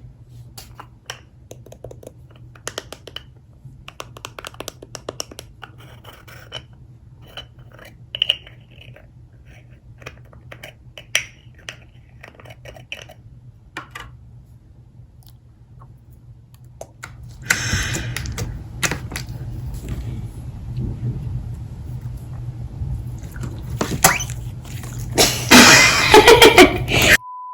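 Slime being handled: a long run of small sticky clicks and pops, then from about two-thirds in a louder, denser squishing, loudest just before the end.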